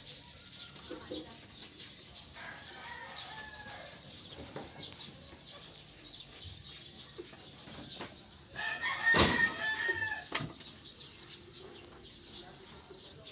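A rooster crowing: one loud call of about two seconds, roughly nine seconds in, with a fainter call a few seconds earlier.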